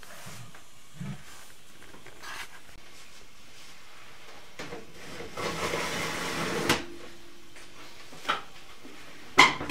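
Metal handling at an open oven: a scraping rustle for about a second and a half in the middle, then sharp clanks of a stainless steel pot, lid and oven rack, the loudest near the end as the oven door is shut.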